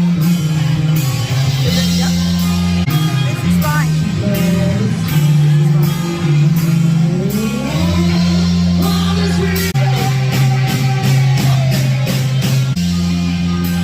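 Rock music with a steady beat and a sustained bass line.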